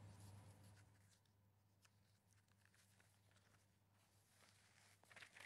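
Near silence: a faint steady low hum with a few faint clicks.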